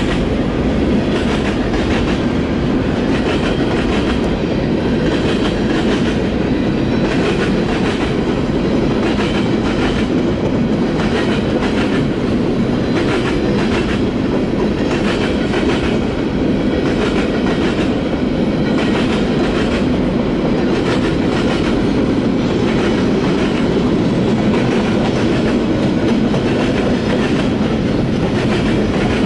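Freight train's boxcars rolling past: a steady rumble of steel wheels on rail, with a repeated clickety-clack of wheels crossing rail joints.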